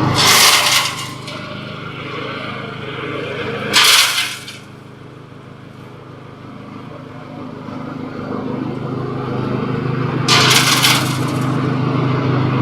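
Candlenut shell-cracking machine running with a steady motor hum, broken three times by about a second of hard cracking and rattling as batches of candlenuts are cracked: near the start, about four seconds in, and near the end. The hum drops away after the first burst and builds back up toward the end.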